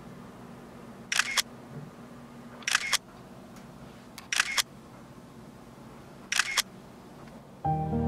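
Camera shutter firing four times, about a second and a half apart, each a quick double click. Soft music comes in just before the end.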